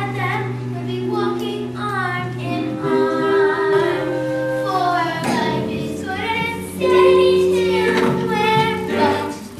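Children singing a show tune with accompaniment, in phrases of held notes.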